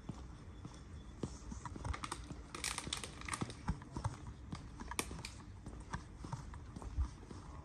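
Footsteps of someone walking on a paved path, heard as irregular light taps and clicks over a low rumble.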